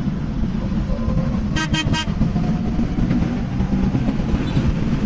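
Vehicle engine and road rumble while driving, with a horn sounding three quick toots about one and a half seconds in.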